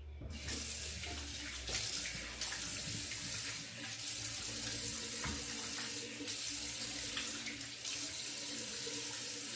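Tap running steadily into a sink.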